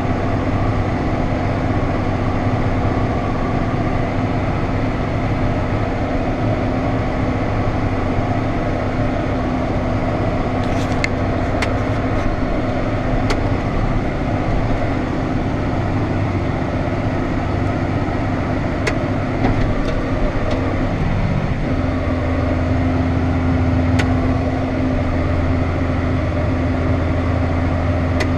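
Diesel harvest machinery running steadily with an even engine hum. About 21 seconds in, the engine note shifts and the low hum grows stronger, with a few faint ticks along the way.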